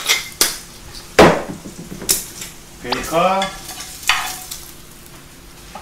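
Cream sauce with cabbage sizzling in a frying pan on a gas burner, with pans and utensils knocking and scraping; the sharpest knock comes about a second in.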